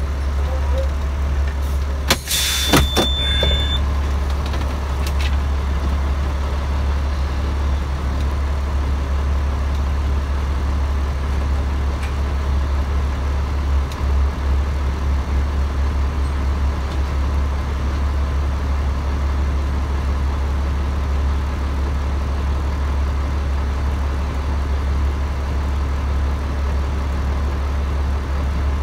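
A semi truck's diesel engine runs throughout as a steady low drone. About two to three seconds in there are a few sharp knocks and a brief high tone.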